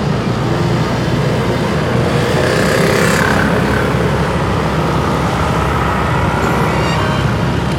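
Motorcycle engine humming steadily while riding slowly in town traffic, under steady road and traffic noise from the surrounding cars and motorbikes. The traffic noise swells briefly about three seconds in.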